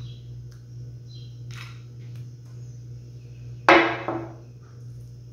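A glass bowl set down on a granite countertop: one sharp clack a little over halfway through, ringing briefly. A steady low hum runs underneath.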